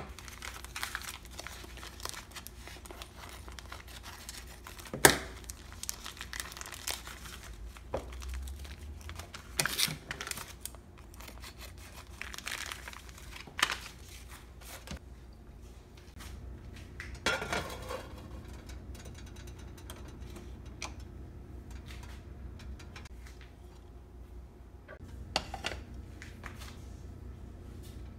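Plastic vacuum-seal bags of frozen fish fillets crinkling and tearing as they are handled and opened by hand, with a few sharp clicks and knocks, the loudest about five seconds in.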